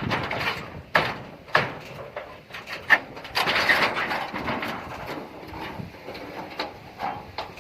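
Irregular knocks and clatter, the sharpest about one, one and a half and three seconds in, with a stretch of rustling noise after the third knock.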